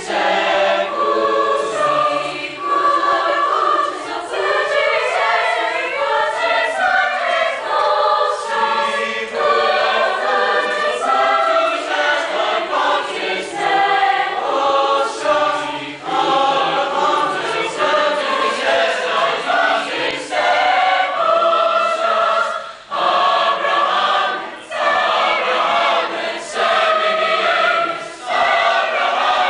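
Mixed youth choir of boys' and girls' voices singing together, with a few short breaks between phrases in the second half.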